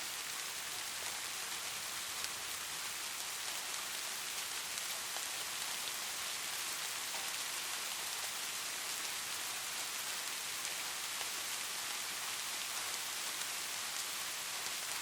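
Steady rain: an even, dense hiss with scattered sharp drop ticks, and no thunder.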